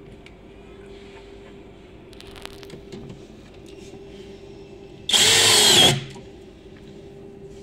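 Cordless drill/driver driving a screw through a drawer slide rail into the cabinet panel, one run of about a second near the end. A few light clicks come before it.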